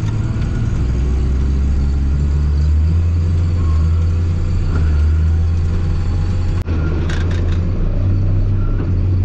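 Case IH tractor's engine running steadily at road speed, heard from inside the cab as a low drone. It drops out for an instant about two-thirds of the way through, then carries on with a few light rattles.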